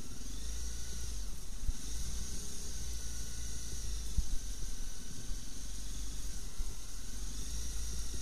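Motorcycle ridden slowly along a wet, muddy lane: the engine's low drone muffled under a deep wind rumble on the helmet camera's microphone, with a steady hiss. A couple of short knocks from bumps in the track.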